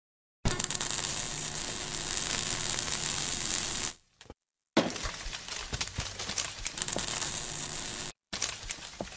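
Sound effects for an animated logo intro: a dense crackling noise full of clicks and small impacts, starting about half a second in. It cuts out near the middle and comes back with a sudden hit, then breaks off once more briefly near the end.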